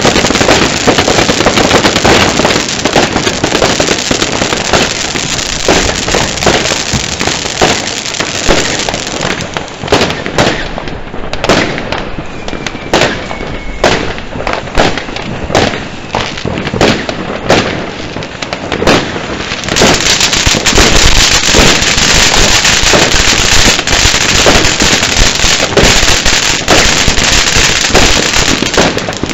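Ground firework fountains spraying sparks: a loud continuous hiss full of crackling. Around the middle the hiss thins and separate crackles stand out, then about twenty seconds in a louder hiss starts up again.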